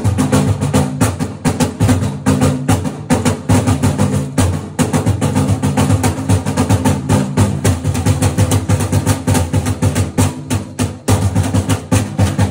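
Large red barrel drum beaten with sticks in a fast, steady stream of strokes, with a low ringing tone under the hits.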